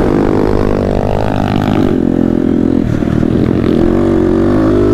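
MRF pit bike's single-cylinder engine running under throttle while riding, its pitch wavering and stepping up and down. The engine is being choked at full throttle, which the rider says is a fault and later puts down to a wet spark plug cap.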